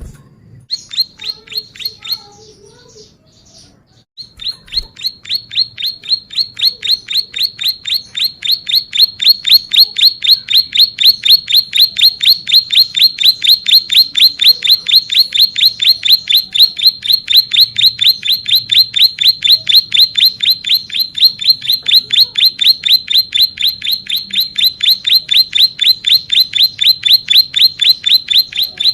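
Ciblek sawah (plain prinia) singing fast, evenly repeated sharp chirps, about five a second. After a short break about three seconds in, it settles into one long unbroken run that grows louder over the next few seconds.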